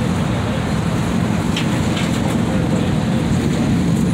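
Steady low rumble of a car driving, engine and road noise, with a couple of faint ticks partway through.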